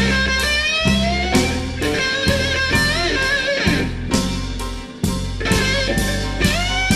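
Blues-rock band playing a slow blues live: an electric guitar plays a lead line full of bent notes over bass and drums.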